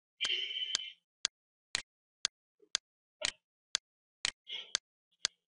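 Steady clock-like ticking, about two sharp ticks a second, with a short hissy sound about a quarter second in and another briefly near the end.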